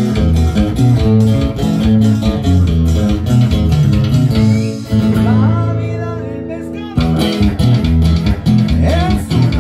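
Music with plucked guitar and bass guitar over a steady beat. About five seconds in, the rhythm stops on a held chord that fades for about two seconds, then the beat comes back.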